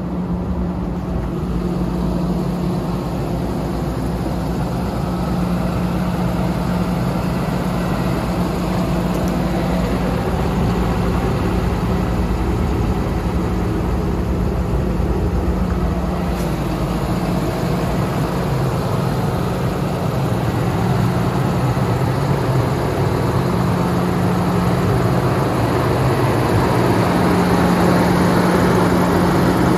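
The Cummins ISB diesel engine of a 2016 International 4300 service truck idling steadily, with a constant low tone running through it.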